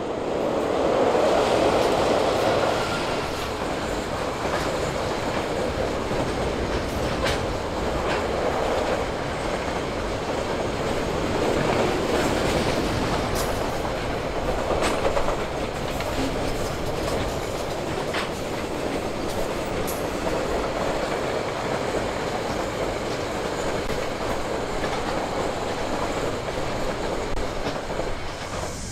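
A KiwiRail freight train passing close by: the diesel locomotive is loudest in the first few seconds, then a long string of tank and container wagons rolls past over the timber trestle bridge. The wheels rumble steadily, with a sharp click now and then as they cross rail joints.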